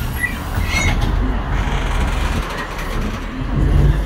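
Cabin noise of a Daewoo NEW BS090 city bus under way, heard from the front of the bus: its compressed-natural-gas engine running with a steady low road rumble, growing louder for a moment near the end.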